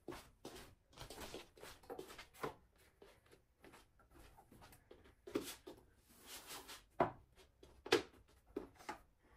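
Irregular light knocks, clicks and rustles of small objects being handled, with two sharper knocks about seven and eight seconds in.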